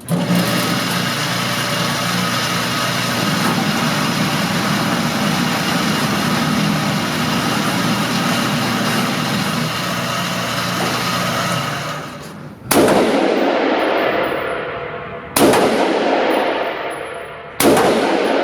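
Semi-automatic rifle fired three times, about two and a half seconds apart, each shot sharp and followed by a long echoing decay. The shots are preceded by a steady hiss.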